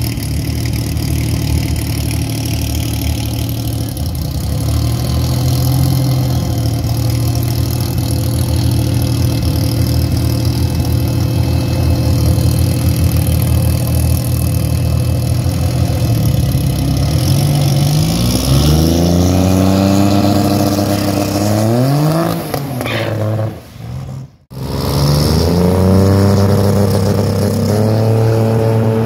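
Drag race car engine idling steadily, then revving in rising sweeps. The sound drops out briefly, and the engine revs up again near the end.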